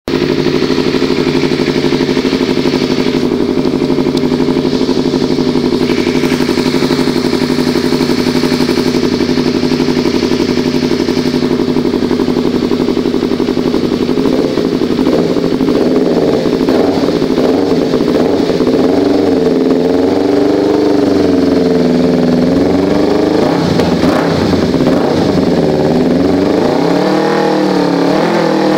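Yamaha R25 parallel-twin engine breathing through an Akrapovič full exhaust system, idling steadily, then revved up and down repeatedly from about halfway in.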